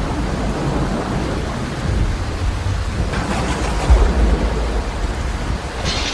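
Rainstorm: steady heavy rain with a deep rumbling that swells about two and four seconds in, and gusts of hiss about three seconds in and again near the end.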